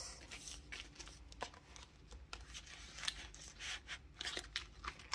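Paper banknotes rustling and a clear plastic cash envelope crinkling as a stack of bills is slid into it, with scattered light clicks and taps.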